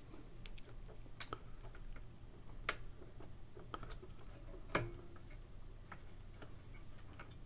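Gears and kicker lever of a Grundig radiogram's record-changer mechanism, turned by hand, giving faint irregular metallic clicks and ticks, with one louder click near five seconds in. The gear is being cycled to check that it disengages and locks out as it should.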